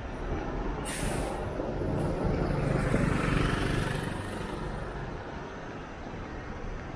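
A motor scooter passes close by, its engine sound swelling to a peak about three seconds in and then fading, over a steady low street-traffic hum. A short hiss sounds about a second in.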